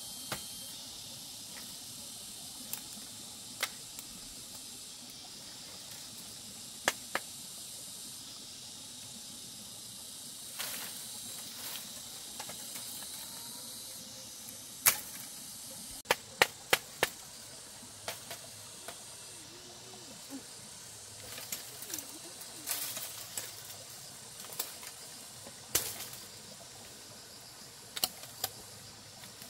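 Scattered sharp cracks and snaps of dry bamboo and twigs as someone pushes through a bamboo thicket, several in quick succession about halfway through, over a steady high hiss.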